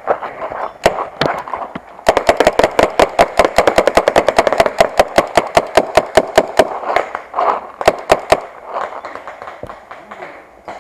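Paintball marker firing: a couple of single shots, then a rapid string of shots at about six a second lasting some six seconds, which stops abruptly about eight seconds in.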